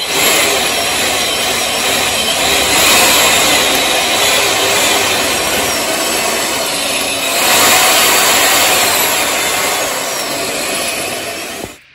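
Power drill grinding into the old lock cylinder of a gumball machine to drill the lock out, running steadily and cutting off suddenly near the end.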